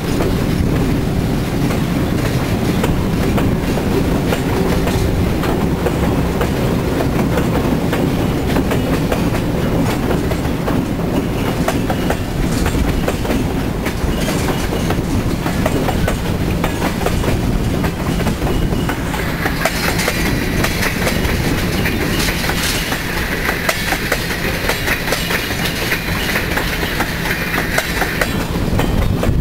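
Diesel switcher locomotives rumbling past, then a string of loaded tank cars rolling by, wheels clicking steadily over the rail joints. About two-thirds of the way through, a higher-pitched wheel squeal joins in.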